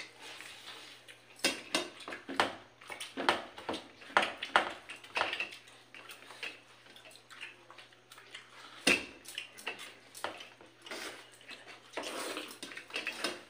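Eating by hand from steel plates: fingers mixing and scooping rice against the metal, with irregular clinks, scrapes and chewing, and a sharper knock about nine seconds in. A steady low hum runs underneath.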